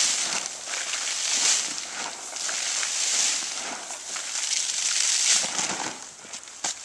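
Whole corn kernels thrown by the handful, scattering and rattling down onto dry leaves and ferns, in about four surges a second or two apart.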